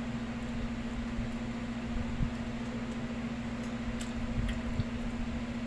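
A steady low hum over an even hiss of room noise, with a few faint clicks about four seconds in.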